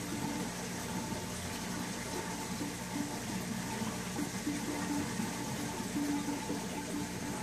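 Aquarium filter running: a steady rush of moving water with a low, even pump hum underneath.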